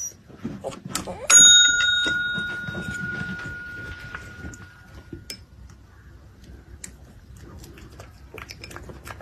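Tabletop service bell struck once about a second in: a bright ring that fades away over about three seconds. Soft scattered taps and clicks follow.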